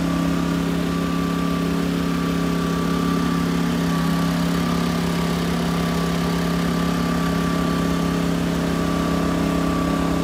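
Taiwan Power GT2000W inverter generator's 79cc single-cylinder engine running at a steady speed while it powers a battery charger. Its low hum holds even throughout, with a thin high tone above it.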